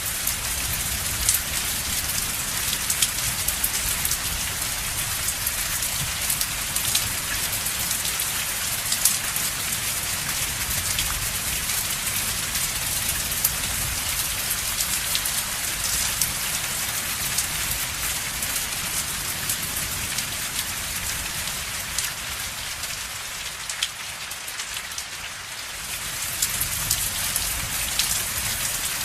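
Steady heavy rain falling on a surface, a dense hiss full of fine drop ticks over a low rumble, easing slightly for a couple of seconds near the end before picking up again.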